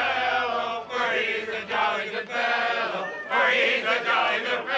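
A group of men's voices singing together in short chanted phrases.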